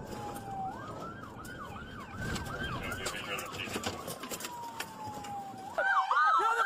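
Police car siren switching between a slowly falling wail and rapid up-and-down yelps. About six seconds in it gets louder, with several sirens sweeping over one another.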